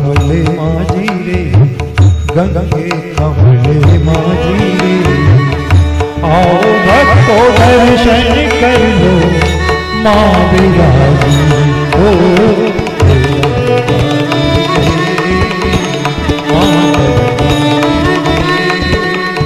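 Indian devotional song music in an instrumental passage: a tabla rhythm under a melody with quick, wavering ornamented runs that are strongest in the middle of the passage.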